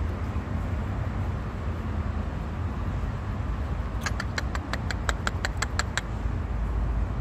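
A steady low rumble. About four seconds in comes a quick, even run of about a dozen short, high chirps from a small animal, lasting about two seconds.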